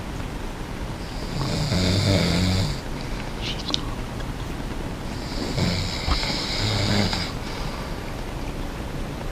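A person snoring: two long snores about four seconds apart, each a low buzz with a hissing edge.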